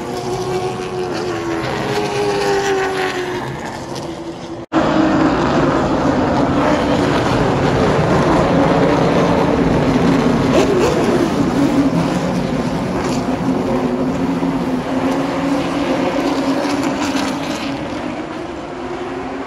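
Late model stock cars' V8 engines racing past on the track. First, engine tones fall away as cars pass. After a sudden cut, a pack of cars goes by, loudest in the middle and fading near the end.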